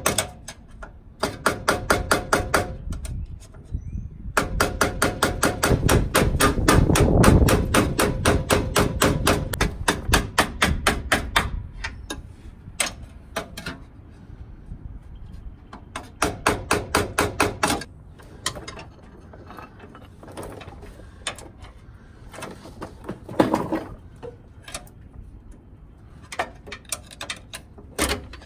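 Ratchet wrench clicking in rapid, even runs as it works the clamp bolt out of the steering shaft's splined coupler at the steering gear, the longest run lasting several seconds, then shorter runs and scattered clicks.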